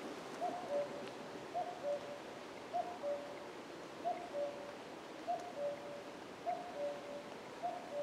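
Common cuckoo calling its two-note falling "cuck-oo", a short higher note then a longer lower one, repeated steadily about once a second.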